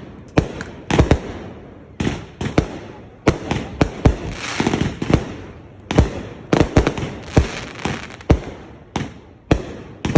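Fireworks going off: a run of sharp bangs at irregular intervals, at times several in quick succession, with a burst of crackling about four to five seconds in.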